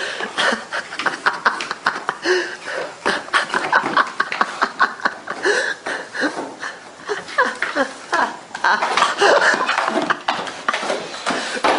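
People laughing while a dog with its head in a small cardboard box pushes it about on a wooden floor, the box scraping and knocking.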